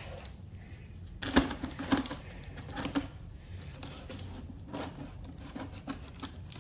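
Cardboard shipping box being handled and opened: a series of scattered clicks and knocks, the sharpest a little over a second in, at about two and three seconds, and near five seconds.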